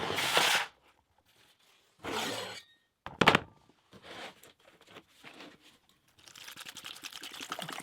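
Rusted metal plant stand being handled and set down: two brief scraping rustles, a sharp clunk about three seconds in, a few light knocks, then steady crackling noise starting near the end.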